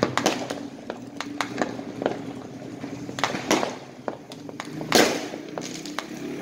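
Fireworks and firecrackers going off across a city at night: an irregular series of sharp bangs and pops, the loudest about five seconds in.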